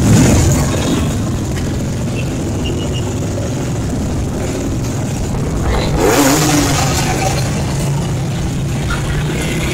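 Motorcycle engines running as a column of small motorbikes rides slowly past close by, a steady mixed engine noise that grows louder for a moment about six seconds in.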